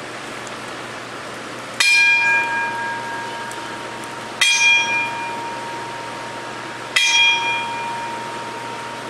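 Wrestling ring bell struck three times, about two and a half seconds apart, each stroke ringing on and fading before the next. The strokes are part of a ten-bell salute, the ring tribute to someone who has died.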